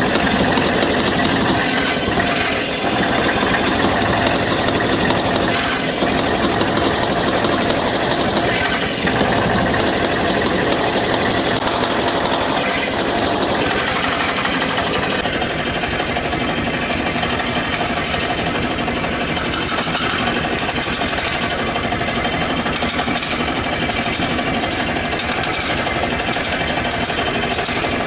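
Power hammer running and striking hot steel tong stock in a rapid, steady run of blows.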